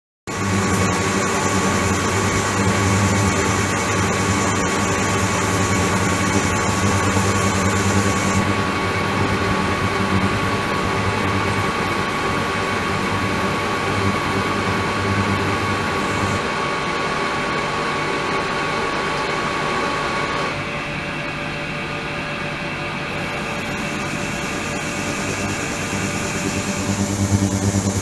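Flow-through ultrasonic tank running with water circulating through it: a steady machine hum with a low drone and several high steady whines. The mix of tones shifts abruptly a few times as the running state changes.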